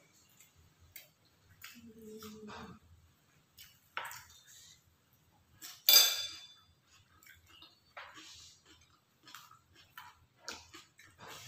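Metal spoons clinking and scraping against ceramic plates and bowls during a meal: scattered light clicks, with one loud ringing clink about six seconds in.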